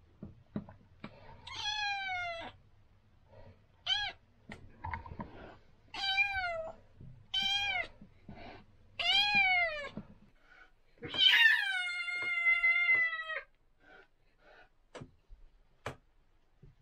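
A small kitten meowing six times, high-pitched, each meow falling in pitch, the last one long and drawn out; the cries of a frightened kitten.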